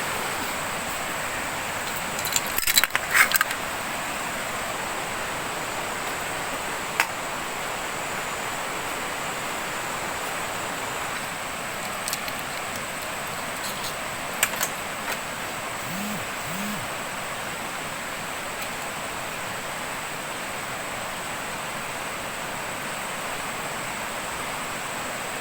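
River water rushing steadily under a thin, steady high-pitched tone. About three seconds in there is a short burst of metallic clinking and clattering, and a few single knocks follow later.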